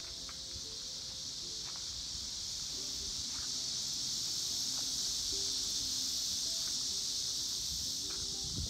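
Steady, high-pitched chorus of insects such as crickets, an unbroken buzzing hiss that does not pause.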